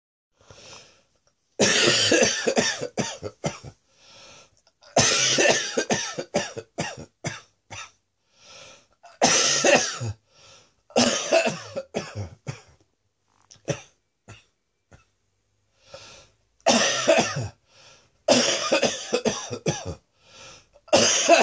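A person's chesty, wet-sounding cough from a chest infection, coming in about seven loud fits of several quick coughs each, with short pauses between them.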